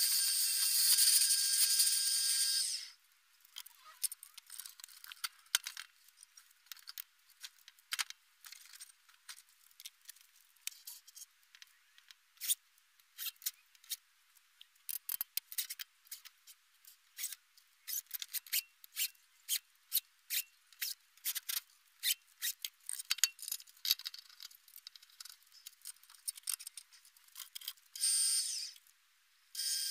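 Wood lathe spinning a walnut log, running steadily for about the first three seconds and then stopping. A long quieter stretch of scattered clicks and knocks follows as the faceplate on the stopped log is handled, and the lathe runs again briefly near the end.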